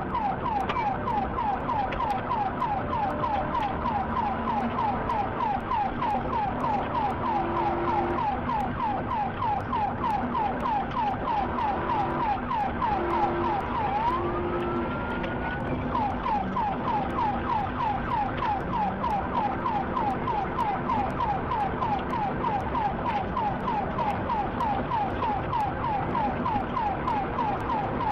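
Police car siren on a rapid yelp, about three falling sweeps a second, with a steady rush of engine and road noise underneath. Near the middle the yelp gives way to one long rising sweep for a couple of seconds, then picks up again.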